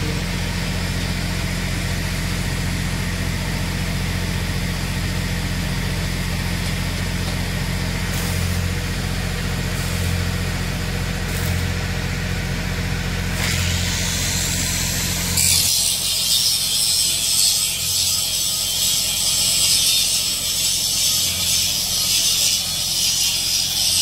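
An engine runs steadily with a low hum. About two-thirds of the way through, electric arc welding takes over as a loud, steady crackling sizzle as a steel post is welded to the frame.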